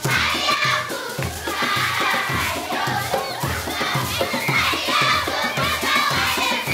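A crowd of children singing and shouting together over a steady low beat of about two a second.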